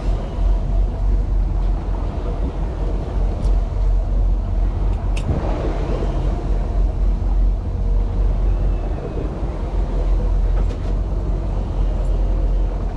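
Steady low rumble of a boat's engine running at trolling speed, with wind and water noise and a few faint knocks.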